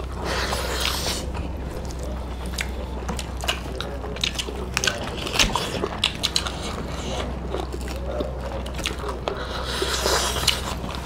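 Two people eating rice and curry with their hands: wet chewing and smacking with the squish of fingers working the rice, in many small irregular clicks, over a steady low hum.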